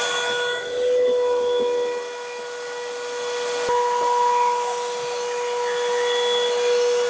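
Vacuum cleaner running with a steady whistling whine over a rushing hiss as its hose nozzle sucks up mouse droppings. The sound swells and eases slightly as the nozzle moves.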